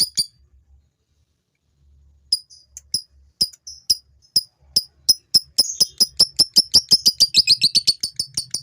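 Male lovebird chattering (ngekek): sharp, high chirps that stop briefly near the start, then come back one by one and quicken about halfway through into a fast, continuous chattering run.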